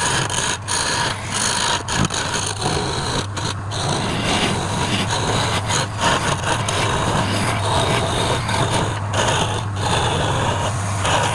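Wood lathe motor running with a steady hum, with a tool scraping against the spinning workpiece; the scraping breaks off briefly now and then.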